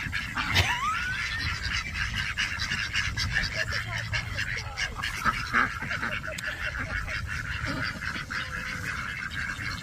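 A group of domestic ducks quacking and calling steadily, with one rising call about half a second in.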